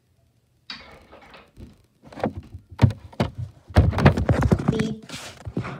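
Handling noise from a camera being picked up and repositioned: rubbing against the microphone and a quick run of knocks and thuds, starting about a second in, with the loudest thuds near the middle.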